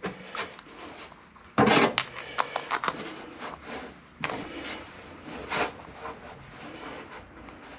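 Scattered knocks, clicks and clinks of small metal parts being handled and set down: pieces of a 2x72 belt grinder's wheel and bearing assembly. The loudest knock comes about one and a half seconds in, with a quick run of small clicks right after it.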